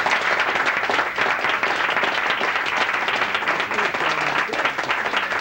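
Audience applauding: a group of people clapping, steady and even in level throughout.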